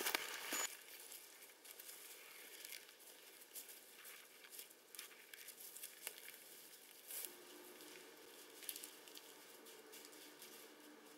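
Camera being handled and set down with a brief louder scuffle at the very start, then mostly near silence with faint scattered rustles and ticks from dry leaves and twigs on the forest floor.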